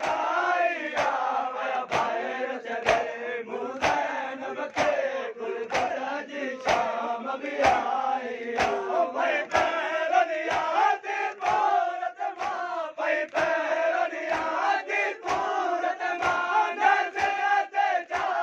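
A crowd of men chanting a noha in unison while beating their chests in matam, a sharp slap of many hands striking together about once a second.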